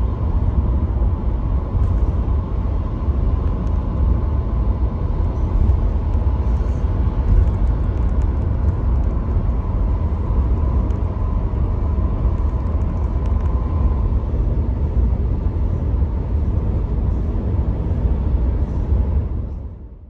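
Road noise inside a moving car: a steady low rumble of tyres on a rough, bumpy road, with a faint steady hum above it. It fades out near the end.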